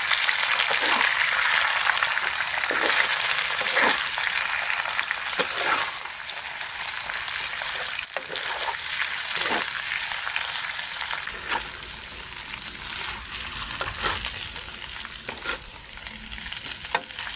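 Rice noodles stir-frying in an oiled pan: steady sizzling, with a spatula scraping and knocking the pan every second or two. The sizzle eases off gradually toward the end.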